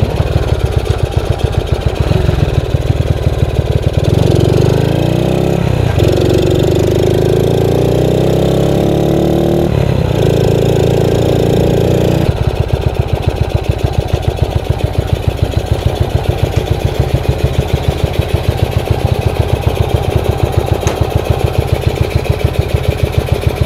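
Freshly overhauled Yamaha SRX motorcycle engine running with a rapid pulse. About four seconds in it revs up, rising in pitch through two gear changes, holds high briefly, then drops back to a lower, steady pulse for the rest.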